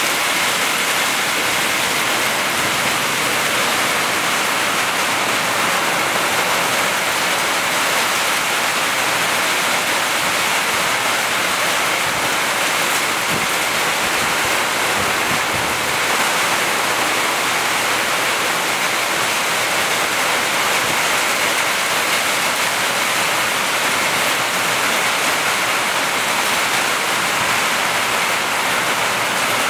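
Heavy thunderstorm downpour: dense, steady rain, with water pouring off the roof edges.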